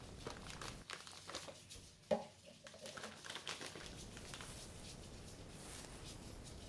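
Plastic spice packet crinkling as it is handled, with small ticks and clicks throughout and a single sharp knock about two seconds in.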